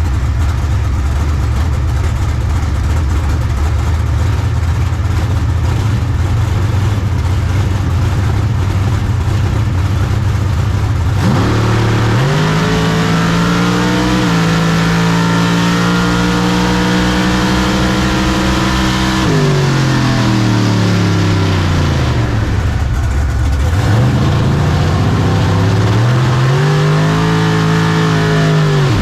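Drag-racing car engine with a rough, lumpy idle. About eleven seconds in it revs up sharply and holds high revs for several seconds, then winds down. It revs up and holds again, dropping back just at the end.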